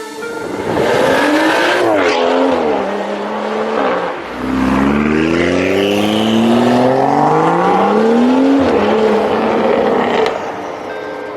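2016 BMW M235i's turbocharged straight-six engine revving under acceleration: the pitch rises, falls back around two seconds in, then climbs steadily for about four seconds before dropping sharply, settling and fading near the end.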